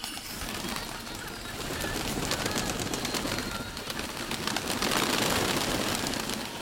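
Domestic pigeons: a dense, rustling flutter that grows louder about two seconds in and peaks around five seconds.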